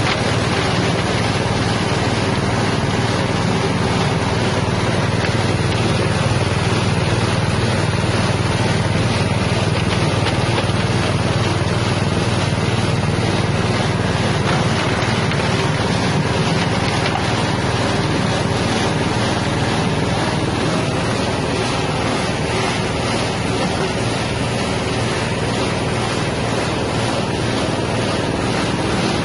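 Spice grinding machine driven by a 6.5 hp engine, running steadily with an even, dense mechanical noise over a low engine hum.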